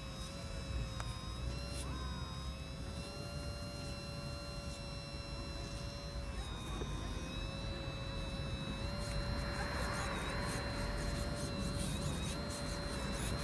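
Electric hydraulic pump of an RC excavator whining steadily, its pitch dipping slightly as the boom, arm and bucket are worked under load. A rougher hiss joins from about nine seconds in.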